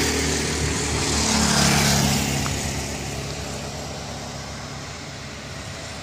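Road vehicle engine running, loudest about two seconds in and then fading away, over a steady hiss.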